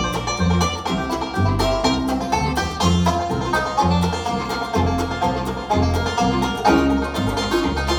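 A band playing a bluegrass-style instrumental tune: plucked strings, banjo-like, over a bass line that steps between notes about twice a second.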